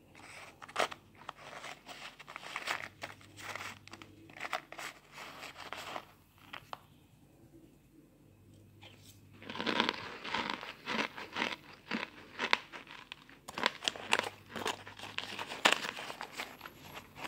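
Chunks of cornstarch and loose powder crunching as a spoon stirs and crushes them in a pan. Two spells of dense crackly crunching, with a pause of about three seconds between them; the second spell is louder.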